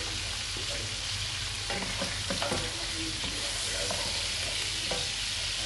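Sliced pork sizzling in hot oil in an aluminium pan: a steady frying hiss. From about two seconds in, a spatula stirs the meat and knocks and scrapes against the pan a few times.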